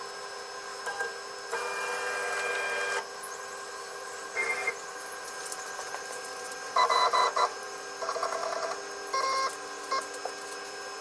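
CNC router's Z-axis stepper motors whining in a series of separate jog moves, each burst at its own pitch, lowering the new bit toward a paper sheet on a setting block to zero the Z height. A steady faint whine runs underneath the moves.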